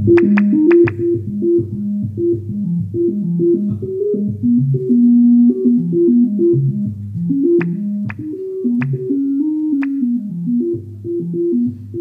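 Synthesized organ-like notes played by touching an orchid wired to a Touché touch sensor: a loose, irregular run of low notes that change pitch with the touch. A few short high pings sound near the start and again past the middle.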